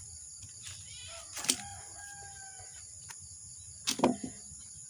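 A rooster crows once: a drawn-out call of about two seconds that rises at the start and then holds, over a steady high trill of insects. Sharp clicks from plastic pipe fittings being handled come about a second and a half in and again near the end, and these are the loudest sounds.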